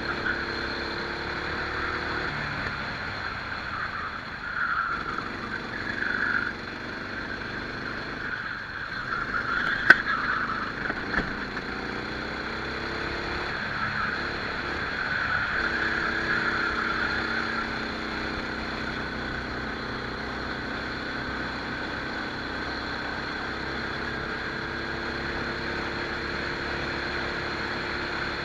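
Rental kart's engine heard onboard while racing, its pitch repeatedly rising under acceleration and dropping off, over a steady hiss of wind and exhaust. A single sharp click about ten seconds in.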